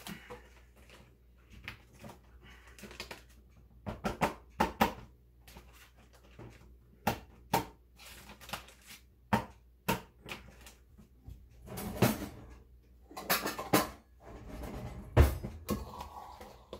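Quart-size plastic freezer bags being handled: crinkling and rustling plastic with many scattered sharp clicks, and one louder knock about three-quarters of the way through.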